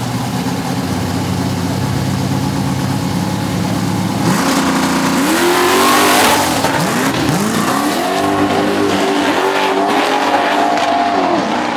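Two big-rim 1970s Chevrolet donk cars idle at the starting line, then launch about four seconds in with a sudden loud burst of engine and tyre noise. The engines then rev hard away down the strip, their pitch rising and dropping back several times as they shift gears.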